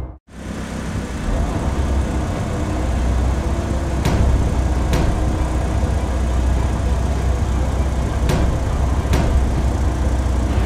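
Sound effect of a large vehicle's engine running with a steady low drone, swelling over the first two seconds after a brief cut, with four short sharp clicks along the way.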